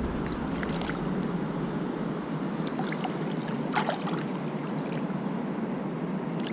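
Steady rush of flowing river water, with a short splash-like noise a little under four seconds in.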